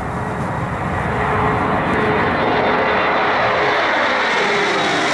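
Boeing 737 Classic jetliner's turbofan engines at take-off thrust as it climbs out low overhead. The noise grows louder over the first second and a half, then holds, and its tones slide down in pitch as the plane passes.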